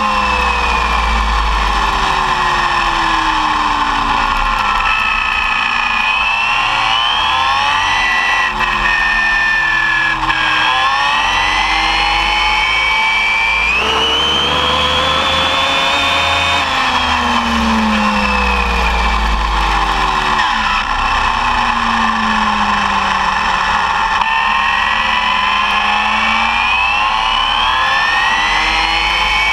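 Arrma Typhon 6S RC buggy's electric motor and drivetrain whining at speed, the pitch climbing and dropping several times as the throttle is opened and eased. Under it runs a steady low rumble picked up by the camera riding on the car.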